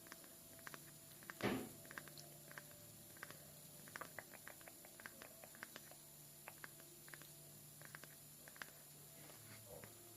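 Slow, soft ASMR tapping: light, irregular taps and clicks a few times a second, with one louder tap about a second and a half in, over a faint steady hum.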